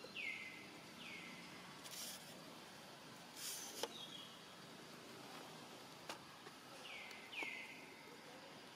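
Faint natural outdoor ambience: a short call that slides down in pitch and levels off, heard twice near the start and twice again about seven seconds in. Two brief high buzzes sound in between, along with a few small clicks.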